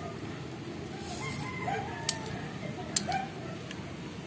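Two sharp clicks, about a second apart, as plastic BBs are pressed one by one into the magazine of a C.15A airsoft pistol. A rooster crows faintly behind them.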